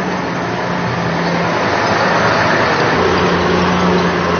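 Motor vehicle engines running steadily with street traffic noise: a steady low engine hum under a constant noisy hiss, getting a little louder about halfway through.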